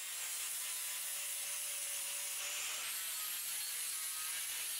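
Angle grinder working the steel axe head: a steady abrasive hiss of disc on metal with a faint high motor whine.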